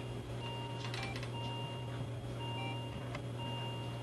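Simulated patient monitor beeping about once a second, a longer higher beep alternating with a shorter lower one, over a steady low hum.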